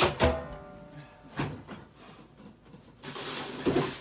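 Kitchen handling noises: a sharp clink that rings briefly as something hard is set down, then two soft knocks, and about three seconds in a loud rustling hiss.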